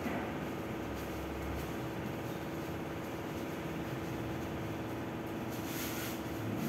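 Steady low hum with a constant tone underneath. About six seconds in, a brief rustle of nylon as the tent is pulled out of its stuff sack.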